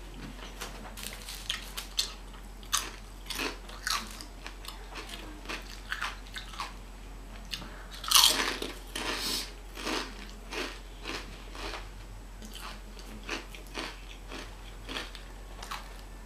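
Close-up crisp crunching and chewing of chips, in repeated short crunches, with a loud bite about eight seconds in.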